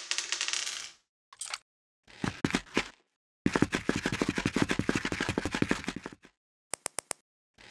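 Added stop-motion sound effects: a clattering crash dying away, a few short clusters of clicks, then a long run of rapid clicking patter, and four quick evenly spaced clicks near the end.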